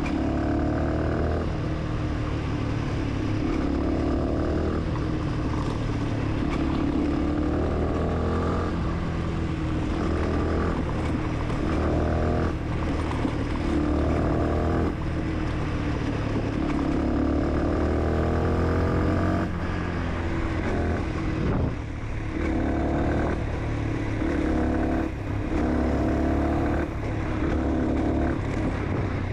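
Fantic 125 supermoto motorcycle engine, heard while riding, pulling up through the revs again and again as it accelerates, with brief drops in between where the throttle closes for gear changes.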